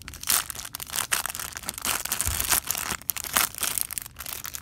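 Cardboard box and packaging rustling and crinkling in irregular bursts as a zipper pouch is pulled out of it by hand, with a dull bump about halfway through.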